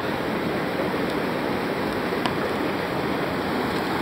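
River whitewater rushing steadily through a rapid, a continuous churning roar of water.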